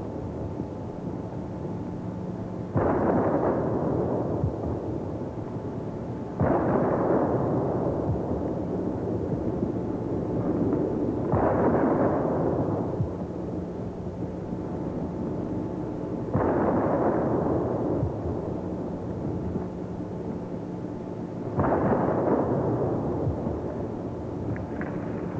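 Cannon firing a 21-gun salute: five booms, about four to five seconds apart, each rolling away over a few seconds.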